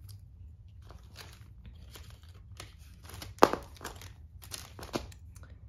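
Clear plastic zip-top bag crinkling and rustling as it is handled, in a string of short crinkles with one louder, sharper one about three and a half seconds in.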